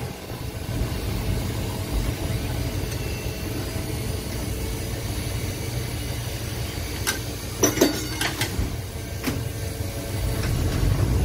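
TECO Line streetcar running along its track, heard from inside the car: a steady low rumble from the car in motion, with a few sharp clicks and knocks about two-thirds of the way through.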